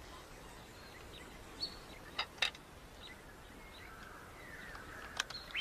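Faint outdoor background with a few short bird chirps and ticks, and a faint wavering bird call in the second half.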